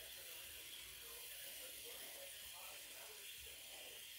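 Faint, steady hiss of an aerosol can of chain lube spraying through its straw nozzle onto a motorcycle's drive chain.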